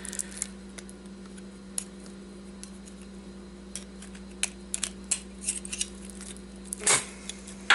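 Light metallic clicks and clinks of thin steel transformer laminations being worked loose and pulled from the core, with a louder metal clatter near the end.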